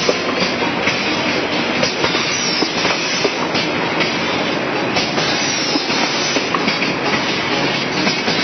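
Tomato-sauce packaging machine running, a steady dense clatter of many small mechanical clicks and knocks.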